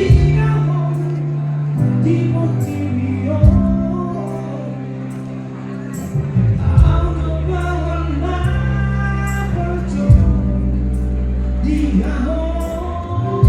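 Music with a singing voice over sustained bass notes and a steady beat of light percussion.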